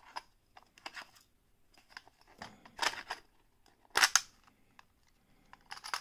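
Clear plastic precision-screwdriver case being handled and opened by hand: scattered sharp plastic clicks and knocks, the loudest about four seconds in.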